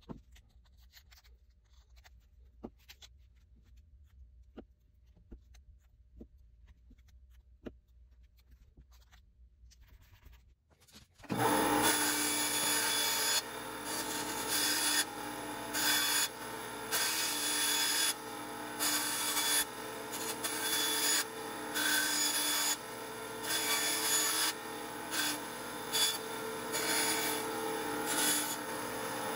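A few faint clicks of hands working a small acrylic sheet and tape. About eleven seconds in, a band saw starts running and cuts through the clear acrylic, growing louder in surges each time the piece is pushed into the blade.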